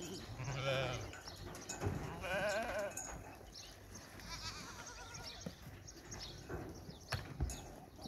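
Najdi sheep in a pen bleating: three quavering bleats in the first half, the last one fainter. A few sharp knocks, the loudest sounds, come about two seconds in and twice near the end.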